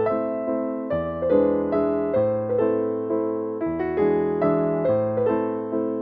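Background piano music: a melody of quick notes over low notes that change about every second and a half.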